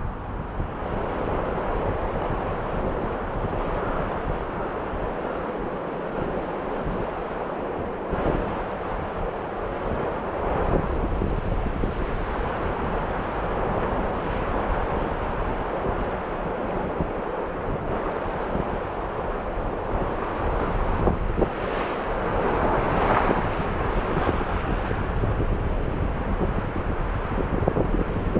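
Strong wind buffeting the microphone over surf washing against a rocky shore, with a few louder swells surging in, the loudest a little after the middle.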